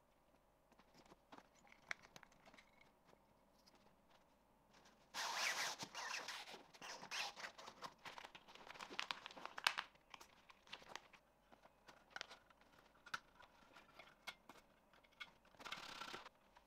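Elastic shock cord drawn through the nylon webbing loops of a backpack, a rasping rustle lasting several seconds, with small clicks and taps of handling before and after. A second short rasp comes near the end.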